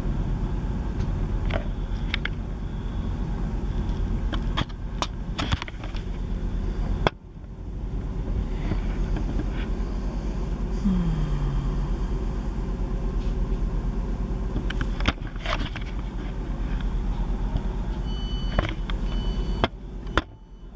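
Class 158 diesel multiple unit's engine running steadily, with scattered clicks and a sharp knock about seven seconds in; near the end, a few short high beeps.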